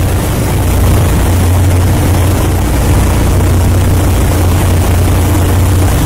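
Steady low drone of a ship's engines heard on the open deck while under way, mixed with an even rush of wind and water.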